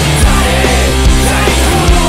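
Loud hard rock music with a driving drum beat.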